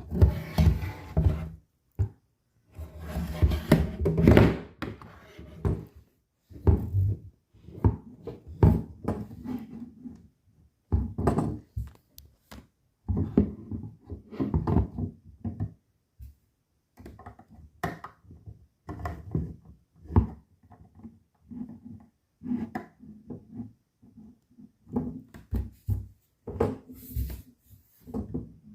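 Plastic Lego rifle being handled: a run of irregular short knocks, clicks and clatters of Lego parts, with some rubbing.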